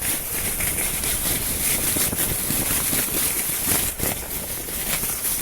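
A sled sliding down a snowy slope: a steady scraping rush over the snow with small bumps, mixed with wind buffeting the microphone.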